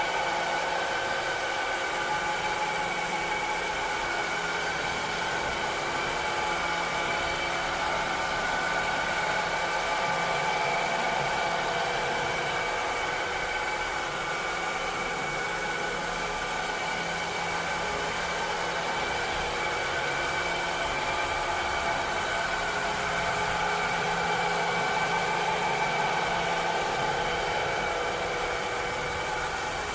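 Cleaning robot running steadily, a continuous motor whir with a few steady whining tones over an even hiss.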